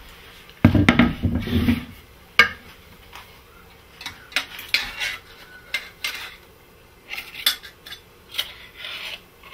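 A knife scraping chopped chicken off a wooden cutting board, then a single sharp knock about two and a half seconds in. From about four seconds on, a metal spoon clinks and scrapes repeatedly against a stainless steel saucepan as soup is stirred.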